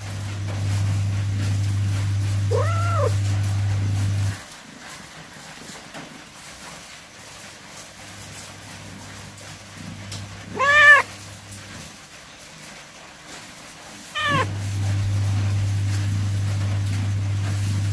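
Pregnant calico cat about to give birth meowing three times, short arched meows, the one about eleven seconds in the loudest. A steady low hum sounds underneath for the first four seconds and again from the last meow on.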